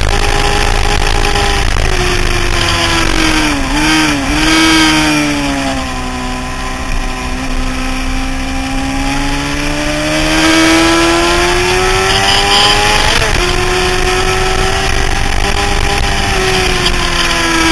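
Honda CBR600F4i inline-four engine heard from an onboard camera at track speed, over a steady rush of wind. The engine note wavers and falls about four seconds in, then climbs slowly and steadily, rises sharply and drops abruptly about 13 seconds in as the rider shifts up, and holds near the end.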